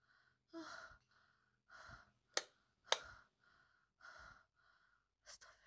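A person's heavy, uneasy breathing close to the microphone, about one breath a second. Two sharp clicks about half a second apart come near the middle.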